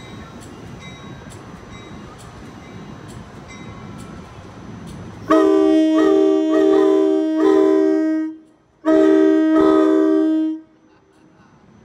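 Low rumble of a train running, then a locomotive's multi-note air horn sounds two loud blasts: one of about three seconds and, after a brief gap, a slightly shorter one.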